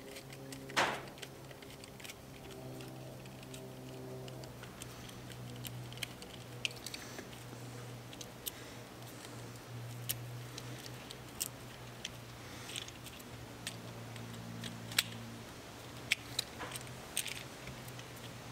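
Scattered light clicks and taps of a screwdriver and the plug's metal and plastic parts as a three-phase plug is taken apart and its wire leads removed, over a low steady hum.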